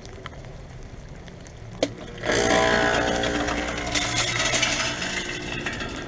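2001 Comfort Range 2-ton heat pump outdoor unit switching out of defrost back into heat mode: a click a little under two seconds in, then a sudden rush of noise with a steady hum as the unit starts up again.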